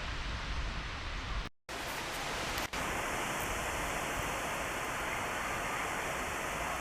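Steady rushing wind noise, with a brief cut-out about a second and a half in.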